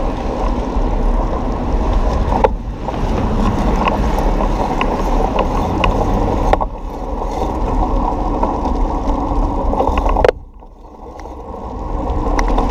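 Loud, dull wind buffeting and road rumble on a camera mounted on a moving bicycle, with occasional sharp clicks and rattles. It dips suddenly a few times and drops away about ten seconds in, then builds again.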